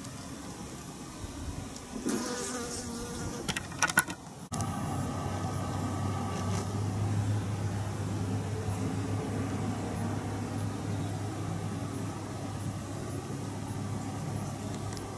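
A flying insect buzzing close by for a couple of seconds, with a few sharp clicks; after a sudden cut, a steady low hum over outdoor noise.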